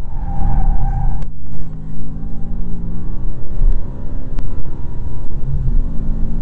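Car engine heard from inside the cabin under hard acceleration on a race track, with a heavy low rumble; a brief break about a second in, then the engine note climbs steadily in pitch and drops again near the end as the car shifts up through the gears.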